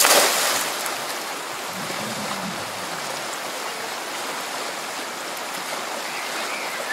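A cast net smacks into a shallow, rocky river with a short loud splash, followed by the steady rush of the river's current over stones.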